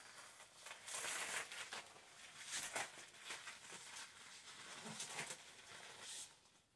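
Thin clear PVC dress rustling and crinkling in a series of short, faint swishes as the wearer moves and turns around.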